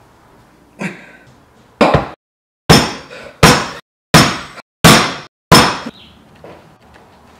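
Hard overhand blows down onto a kitchen cutting board: a light knock, then six loud thwacks about two-thirds of a second apart, each dying away quickly.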